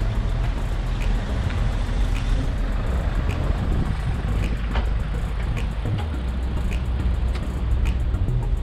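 Steady rumbling ride noise from an electric bicycle on the move, with scattered light clicks.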